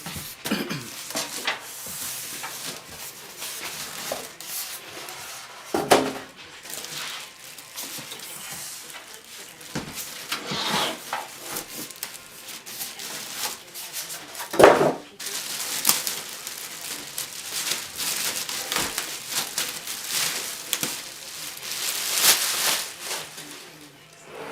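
Handling noise: rubbing and rustling with many small clicks, and two louder knocks about six seconds in and near fifteen seconds.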